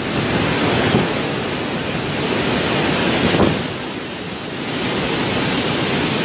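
Strong coastal storm wind blowing hard across the microphone over rough sea surf, a loud, steady rush that surges a couple of times.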